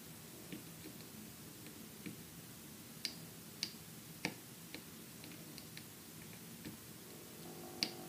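Scattered small, sharp clicks and ticks of soldering tools against a circuit board while desoldering a mouse-button switch, the loudest few about three to four seconds in and one near the end.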